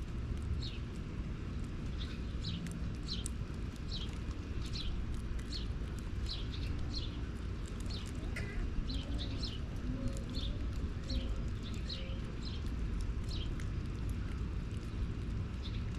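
Small bird calling with an irregular series of short, high chirps over a steady low background rumble.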